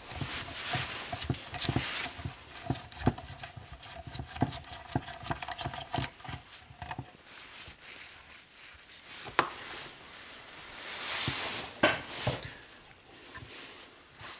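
Light clicks and ticks of a precision screwdriver and small metal bits being handled against a plastic module housing and bit case while tiny Torx screws are taken out, with a brief rustle near the end.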